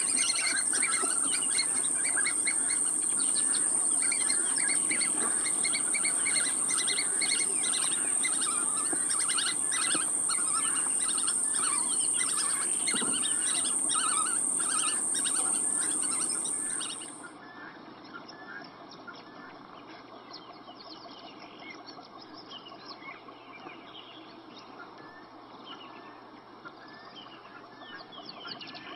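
Small fish thrashing and splashing in the shallow water of a drawn-in net, heard as quick crackling splashes, over birds chirping and a steady high-pitched whine. About seventeen seconds in the louder sound cuts off suddenly, leaving fainter splashing and chirping.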